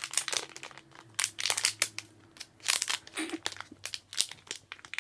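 Pin packaging crinkling and rustling in the hands as it is opened, in quick irregular crackles.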